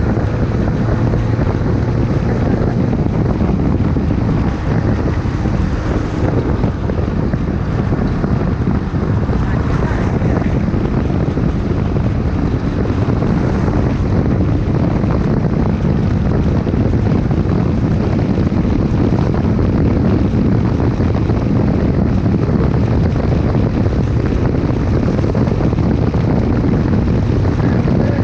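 Honda CBX 250 Twister's single-cylinder engine running steadily through a Tiozão aftermarket exhaust, a deep low rumble, with wind noise on the microphone.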